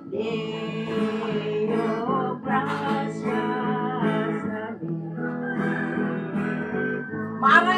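Music: an acoustic guitar strummed, with a voice singing over it.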